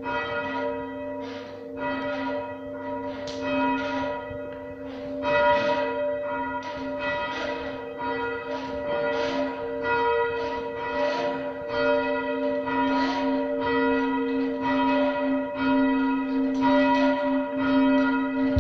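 The church's Pancake bell rung repeatedly, a steady run of strokes at about one and a half a second, its hum ringing on between strokes. This is the bell traditionally rung on Shrove Tuesday as a call to confession and to use up fat before Lent.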